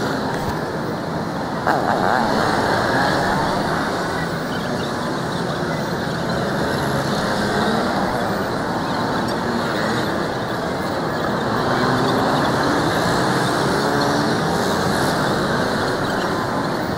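Steady road traffic noise, with a short louder sound about two seconds in.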